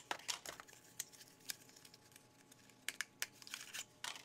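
Small cardboard lipstick boxes being handled and set down against one another: soft, irregular light taps and clicks, about a dozen across a few seconds.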